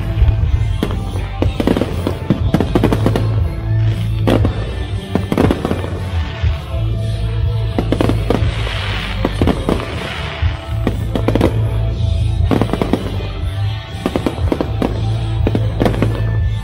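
Fireworks going off in quick succession, many sharp bangs and crackles, over loud show music with a steady bass.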